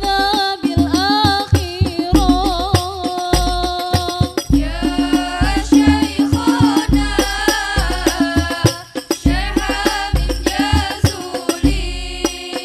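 Sholawat-style singing with a wavering, melodic vocal line, accompanied by a hadrah ensemble of rebana frame drums playing a busy rhythm with repeated deep low drum hits.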